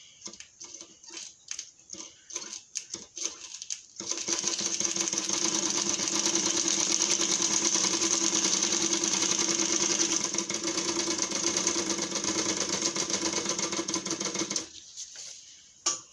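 Overlock machine stitching a test seam through newspaper, running fast and evenly for about ten seconds before stopping suddenly. A few light clicks come before it starts, and a sharp click comes near the end.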